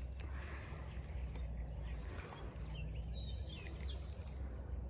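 Outdoor ambience by a pond: a steady low rumble and a steady high-pitched hum, with a few faint bird chirps about three seconds in.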